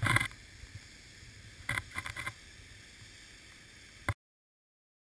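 Wind rumbling on a small camera microphone outdoors, with a few short gusts or knocks of noise, cutting off suddenly about four seconds in.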